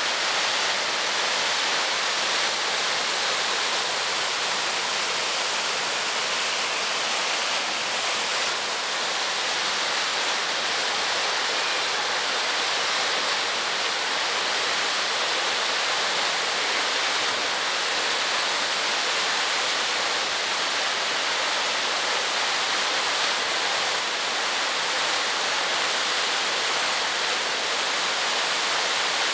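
Whitewater river rapids rushing steadily, an even wash of water noise.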